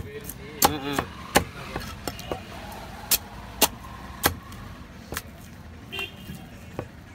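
A heavy curved fish-cutting knife chopping a trevally into pieces on a wooden chopping block: about ten sharp chops at uneven intervals, some in quick succession.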